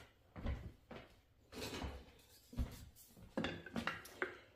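A wooden spoon stirring in a glass mason jar, knocking and scraping against the glass in irregular strokes as washing soda and borax are dissolved in hot water.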